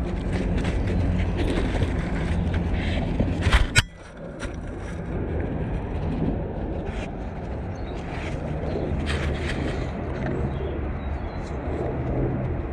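A dog crunching and gnawing on a dried cow ear, with irregular sharp crunches over a steady low rumble; the loudest crunches come just before four seconds in, where the sound briefly drops away.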